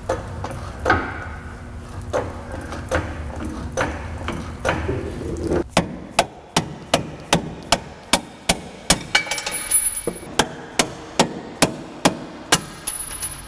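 Tool work on a car's K-member fasteners: a low steady hum with scattered knocks, then from about six seconds in a regular run of sharp strikes, two to three a second.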